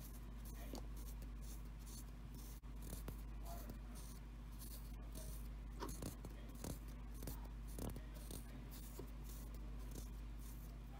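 Faint, scattered rubbing and light clicks of fingers twisting dubbing onto fly-tying thread, over a steady low hum.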